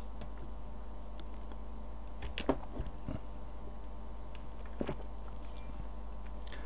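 A steady electrical hum runs throughout. A few short soft clicks come through it, the loudest about two and a half seconds in, then one near three seconds and one near five.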